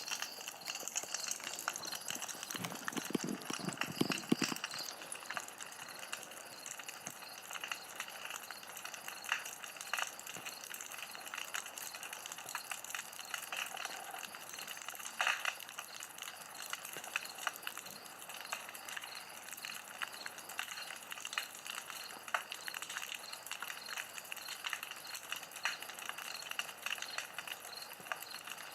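Campfire crackling steadily, a dense run of small pops and snaps over a soft hiss. A brief lower sound comes in about three seconds in.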